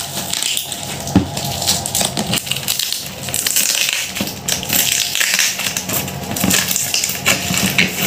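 Plastic wrapping crinkling and cardboard box flaps rustling as hands work open a taped appliance box, with many small irregular crackles and clicks.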